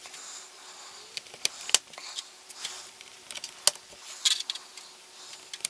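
Socket wrench ratcheting in short runs of clicks, with sharper single clicks between, as the bolts of the oil drain cover plate are tightened.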